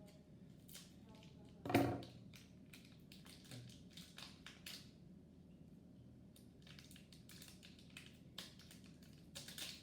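Small plastic toy packaging being handled and opened by hand: scattered crinkling and clicking, with one louder crackle just under two seconds in.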